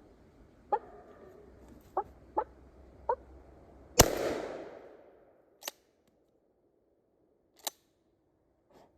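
A few short dog barks, then a single shotgun blast about four seconds in, its echo dying away over about a second; two sharp clicks follow.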